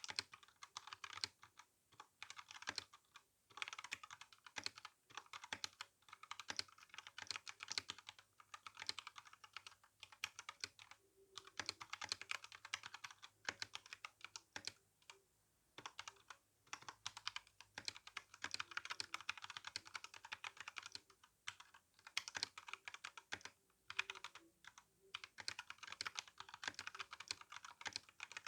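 Fast, continuous typing on an RK61 mechanical keyboard with brown tactile switches and GSA keycaps: a steady patter of keystroke clacks, broken by a few short pauses.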